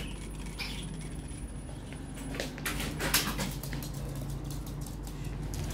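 Steady low hum, then from about halfway a quick, irregular run of clicks and taps: a small terrier's claws pattering on a hard floor.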